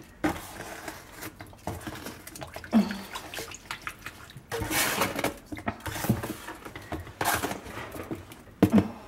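A hand sweeping wet, spilled coarse salt across the floor of a dishwasher tub toward the salt reservoir opening: irregular gritty swishes and scrapes with a little water.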